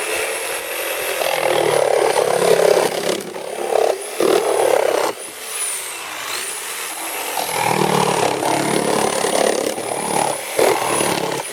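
Electric jigsaw fitted with a Bosch 10-teeth-per-inch wood blade cutting across pallet boards, its motor running with a steady high whine. The cutting is loudest in two stretches, with a lighter spell around the middle.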